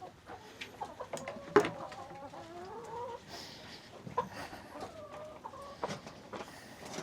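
Chickens clucking in wavering calls, with scattered sharp clicks and knocks; the loudest knock comes about a second and a half in.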